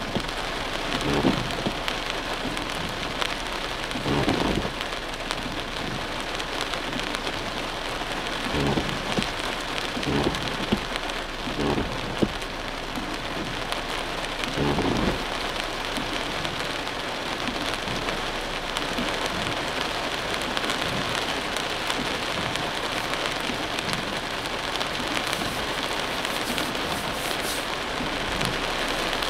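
Heavy rain falling on a car's roof and windshield, heard from inside the car as a dense, steady hiss. A few short low thumps come through in the first half.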